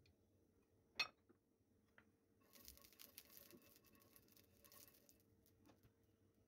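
Faint crackling and ticking of oil heating in a nonstick frying pan while a spatula is pushed around in it, after one sharp click about a second in.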